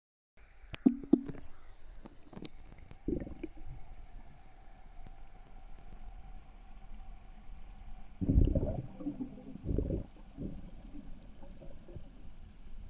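Water sloshing and gurgling around a phone held underwater, heard muffled through the submerged microphone. There are a few sharp clicks near the start and heavier thumps about three seconds in and again around eight to ten seconds, over a faint steady hum.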